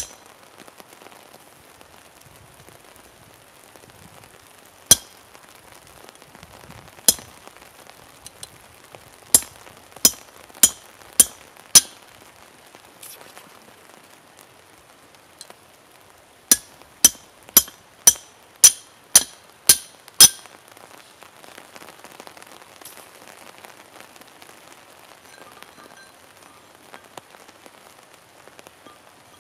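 Hammer blows on a steel punch driving a hole through a steel bar laid on a stone. Each blow is a sharp metallic clink with a short ring. There are seven spaced blows, then a quick run of eight at about two a second.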